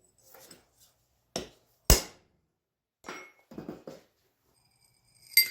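A few irregular metal knocks and clinks as steel is handled and set down, the sharpest about two seconds in, and a clink near the end that rings briefly.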